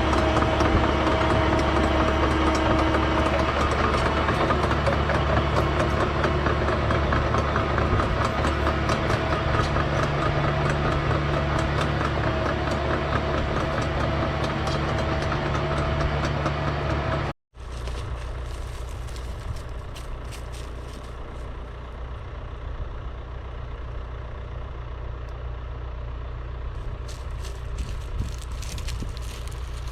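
John Deere 650K crawler dozer's diesel engine running steadily under work. About seventeen seconds in, the sound cuts off abruptly, then the engine continues more quietly, with scattered clicks near the end.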